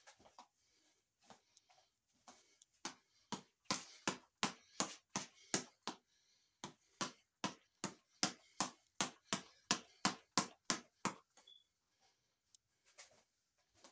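Boxing reflex ball on a headband string being punched with bare fists: a quick, even run of sharp slaps, about three a second, that starts a few seconds in and stops a few seconds before the end.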